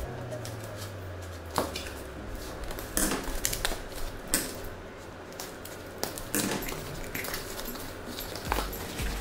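Small cardboard box being handled on a glass tabletop: scattered knocks, scrapes and rustles as its flaps are pulled open.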